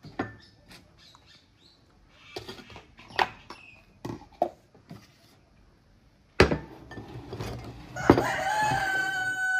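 A rooster crows near the end, one long call. Before it come a few sharp knocks of kitchen utensils, the loudest about six seconds in.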